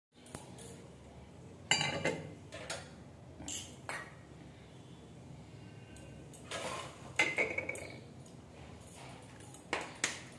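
Brass puja vessels and a brass oil-lamp stand being picked up and set down: scattered metal clinks and knocks, one ringing briefly a little past the middle.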